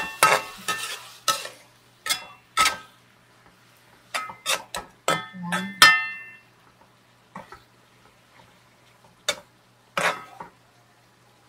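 Metal ladle stirring meat in a metal wok, clanking and scraping against the pan in a quick run of sharp, ringing clinks through the first six seconds, then a few spaced knocks.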